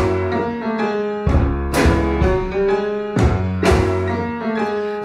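Piano playing chords over low bass notes with no singing: an instrumental passage of a slow pop song.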